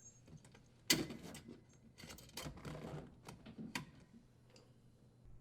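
A sharp click about a second in, then a run of irregular clicks and light metallic rattles as the strain relief and power wires are worked free of the dishwasher's electrical bracket.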